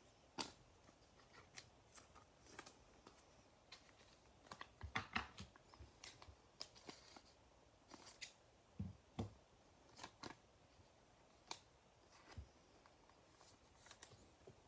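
Faint snipping of scissors and the rustle and clicks of trading cards being handled and slid into plastic sleeves. A scatter of small ticks, with a louder cluster of snips about five seconds in.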